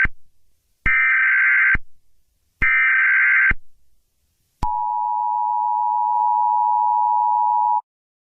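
Emergency Alert System tones: the end of one burst of data warble and two more, each about a second long with short gaps, then the two-tone attention signal held for about three seconds before it cuts off suddenly.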